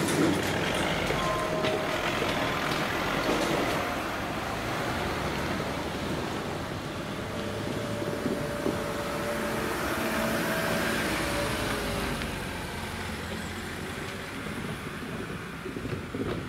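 Cars and vans driving slowly over a railway level crossing one after another, engines and tyres close by, loudest at first and slowly fading. Near the end there are a few knocks as a van's wheels cross the rails.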